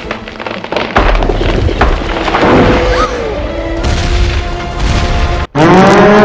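Film soundtrack: music under a string of booms, thumps and splintering crashes. About five and a half seconds in it cuts out for a moment and a loud blaring danger alarm sound effect starts, its pitch rising briefly and then holding steady.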